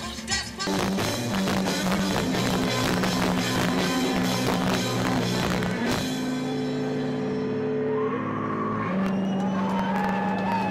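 Rock music with drums, bass and guitar; the drums and cymbals drop out about six seconds in, leaving held notes ringing.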